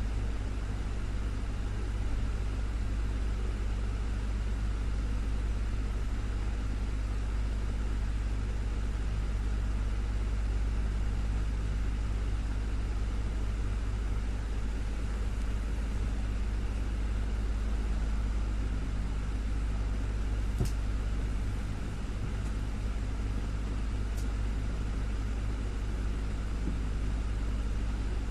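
Desktop electric fan running steadily: a constant low motor hum under an even airy hiss, with two faint ticks partway through.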